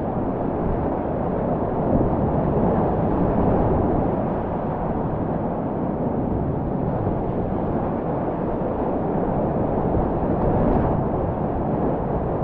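Whitewater rapids: a loud, steady rush of churning water heard from a kayak running through the rapid.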